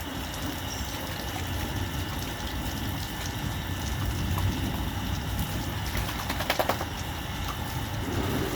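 Water splashing and sloshing as a dog is bathed, with a few sharp knocks about six and a half seconds in.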